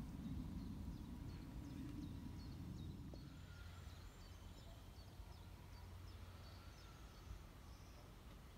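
Faint outdoor birdsong: a scatter of short, high chirps from small birds in the surrounding trees, over a low rumble that eases about three seconds in.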